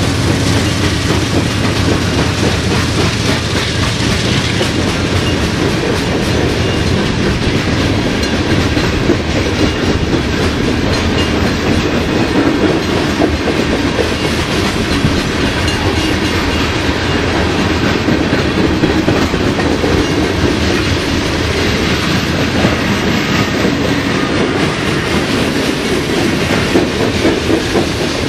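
Freight train of coke hopper cars rolling past close by, wheels clacking steadily over the rails. A low locomotive engine drone fades out in the first second.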